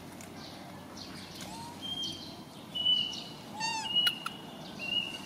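Infant long-tailed macaques calling with high-pitched squeals: short arching cries and held whistle-like notes, starting about two seconds in.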